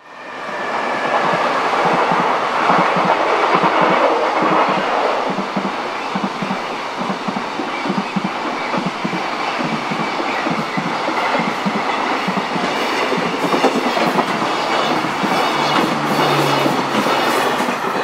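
Container freight train hauled by an EF210 electric locomotive passing over a level crossing, its wheels clattering rhythmically over the rail joints as the wagons roll by.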